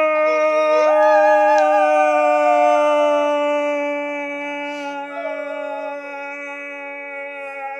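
A steady held organ-like musical note with a person's wavering wail over it. The wail rises at first and then slides slowly down over a couple of seconds, and a shorter wail follows about five seconds in.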